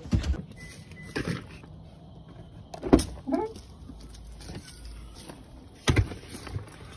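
A few sharp knocks and thumps, a second or more apart, the loudest about three seconds in, over low background noise.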